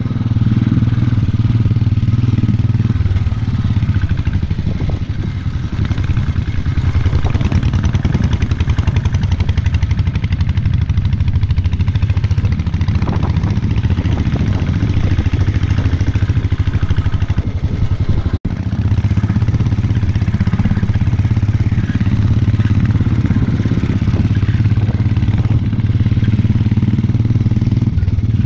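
Royal Enfield motorcycle engine running steadily under way on a gravel road, a continuous low pulsing note. The sound cuts out for an instant about two-thirds of the way through.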